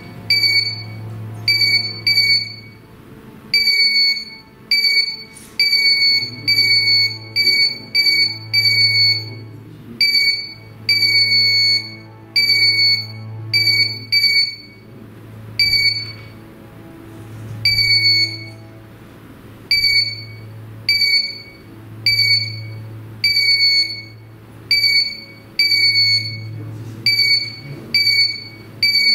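Ghost-hunting trigger detector (a 'pod') going off, giving short, high electronic beeps at an irregular pace, often in quick runs, over low droning background music.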